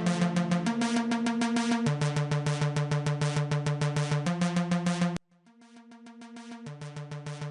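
Electronic background music: synthesizer chords over a fast, even drum-machine pulse. The music cuts out suddenly about five seconds in, then fades back in.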